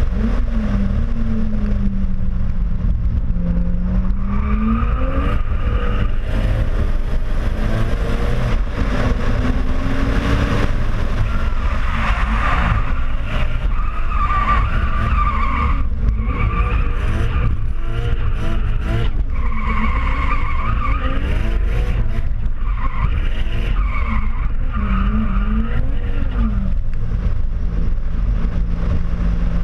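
Toyota JZX100 Mark II Tourer V's turbocharged straight-six revving up and down through a series of drifts, with the rear tyres squealing in long stretches as the car slides sideways. A heavy rumble of wind and road noise on the outside-mounted camera runs underneath.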